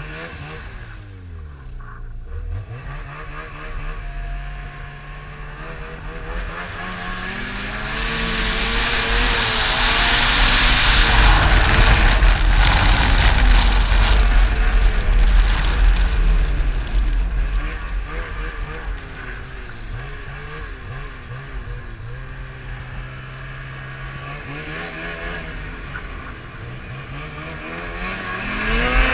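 Vehicle engine heard from an onboard camera, revving up and down: it drops, climbs for several seconds to a long, loud high-rev stretch in the middle, falls back to a steady lower speed, and starts climbing again near the end.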